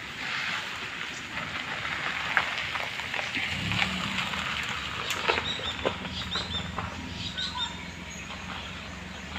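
Outdoor ambience with scattered clicks and a few short high chirps, and a low steady hum that sets in about four seconds in.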